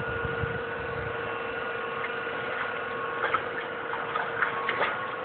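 A steady hum with a few short clicks in the last two seconds.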